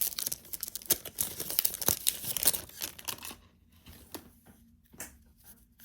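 Wrapper of a Topps baseball card pack being torn open and crinkled: dense crackling for about three seconds, then a few scattered rustles and clicks.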